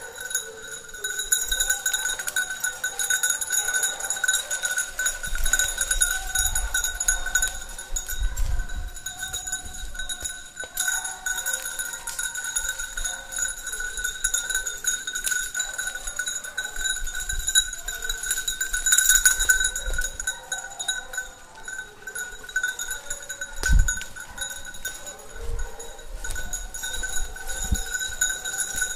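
Bells on the collars of petit basset griffon vendéen hounds ringing steadily as the dogs hunt through the cover. The hounds give tongue now and then, and a few low thumps are heard, the sharpest a little after the middle.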